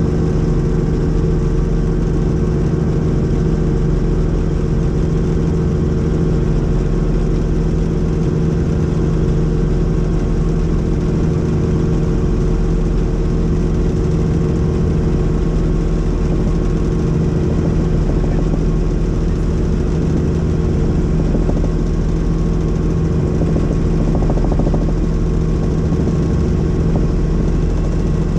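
Helicopter in flight heard from inside the cabin: a steady drone of engine and rotors with a constant low hum that does not change.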